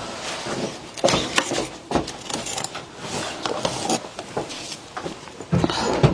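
Ice being bitten and chewed close to the microphone: an irregular run of crisp crunches and cracks.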